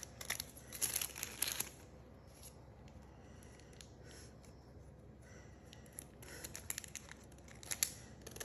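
Steel kitchen scissors snipping through folded paper while the ends of a paper doily are trimmed. There is a quick run of snips in the first second and a half, a quieter spell of paper handling, and a few more snips near the end.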